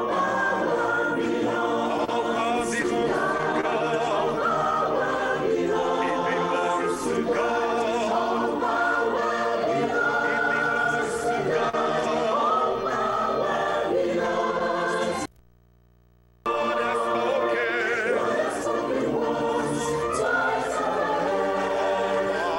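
Church choir singing a gospel song, many voices together. The sound drops out for about a second a little past the middle, then the singing resumes.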